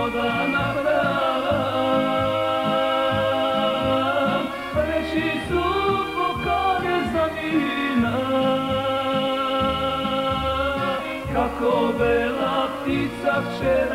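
A man singing a slow song over a band backing with a regular bass line. He holds long, drawn-out notes, one about a second in and another from about eight seconds to eleven.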